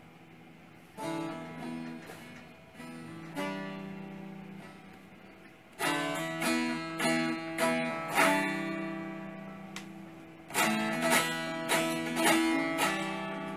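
Two bağlamas (long-necked Turkish saz) playing an instrumental passage of an Alevi nefes, with strummed and plucked phrases separated by short pauses. The playing grows louder and busier about six seconds in, eases briefly, and picks up again near eleven seconds.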